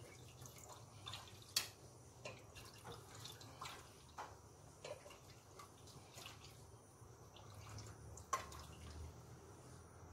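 Thick sweet-potato gravy simmering in a pot: faint, irregular plops of bubbles bursting at the surface, roughly one a second.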